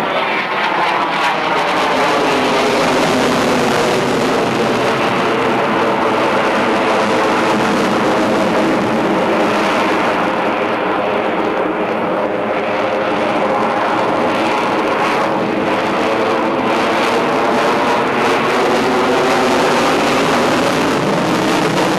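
F-22 Raptor's twin jet engines: a loud, steady jet roar as the fighter manoeuvres overhead, with a slowly sweeping, phasing quality throughout.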